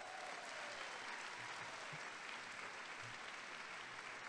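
Audience applauding: a steady, even wash of clapping from a large crowd.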